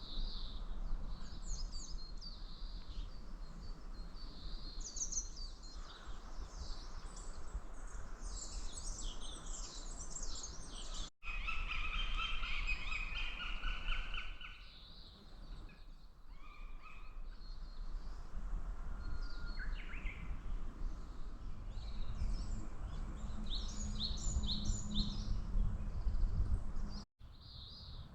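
Small songbirds chirping and trilling, several calls overlapping, over a steady low outdoor rumble. The sound cuts out briefly twice.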